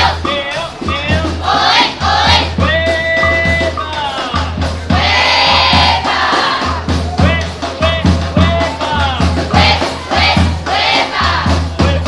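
School marching band playing a tune, with clarinets and saxophones carrying the melody over a steady low beat.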